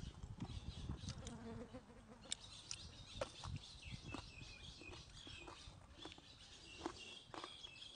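Birds chirping faintly in the background, with scattered soft clicks and crunches of eating and spoon-on-bowl contact.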